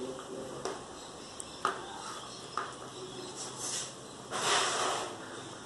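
A few light clicks of a spoon against a plate while cake is eaten, then a short breathy hiss of air about four seconds in.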